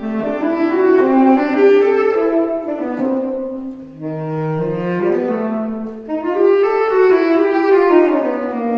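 Tenor saxophone playing a solo line in a contemporary chamber concerto, accompanied by a small ensemble of winds and strings. The music moves in two swelling phrases that climb in pitch, with a brief drop in loudness about four seconds in.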